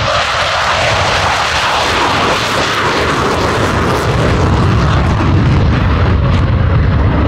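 Twin-engine Boeing Super Hornet jet taking off and climbing away, a loud steady jet roar whose deep rumble grows stronger in the second half before it cuts off suddenly at the end.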